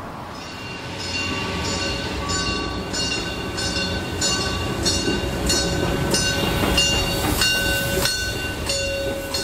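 Molli narrow-gauge steam train coming along the street track, with a metallic ringing struck about twice a second, most likely the locomotive's bell, over the low rumble of the train. It grows louder as the locomotive draws level.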